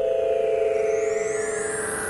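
A synthesized Star Trek-style transporter beaming effect: a steady hum of several held tones with a long falling sweep beneath higher whistles that rise near the end.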